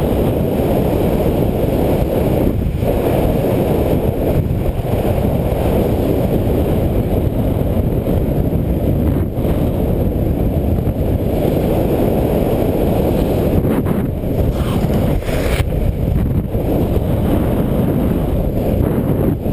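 Loud, steady low rumble of wind blowing over the microphone while flying under a speed wing in strong wind, with a few brief dips.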